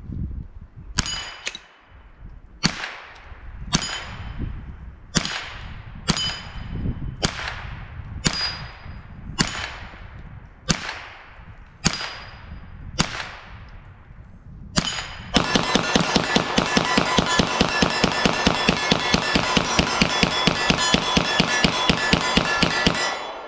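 Gunshots on an outdoor range: about a dozen single shots roughly a second apart, each followed by the ringing ping of a steel target being hit. Then comes a fast, steady string of shots lasting about eight seconds, fired so hard that smoke is coming off the barrel.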